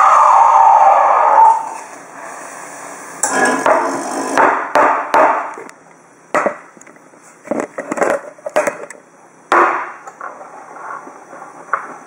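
A loud rushing noise that sinks slightly in pitch and cuts off about a second and a half in. It is followed by a run of hard knocks and clatter from handling the gear: a stainless steel milk pitcher is picked up and set under the espresso machine's steam wand on a stone worktop.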